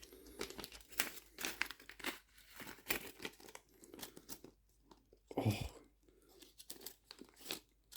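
Packaging and small items being handled during an unboxing: irregular crinkling, tearing and small clicks.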